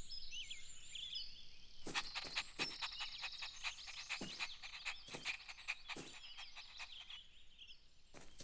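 Faint cartoon garden ambience of birds chirping, with a run of short, sharp sounds from about two seconds in until near the end.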